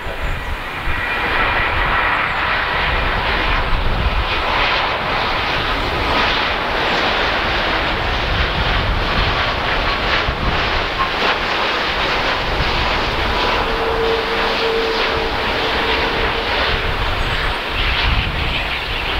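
Boeing 787-8 Dreamliner on final approach passing low overhead: its Rolls-Royce Trent 1000 turbofans and the airframe give a loud, steady jet roar with a faint whine, holding for the whole pass.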